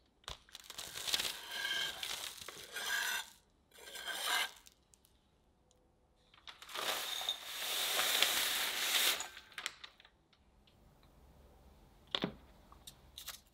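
Dark chocolate shavings rustling and scraping on a wooden cutting board, then sliding off the board into a glass bowl in one longer pour of about three seconds. Near the end comes a single light knock.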